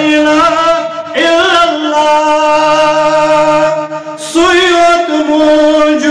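A man chanting a verse in long, drawn-out melodic lines, each held note wavering slightly. The lines break briefly for a breath about a second in and again about four seconds in.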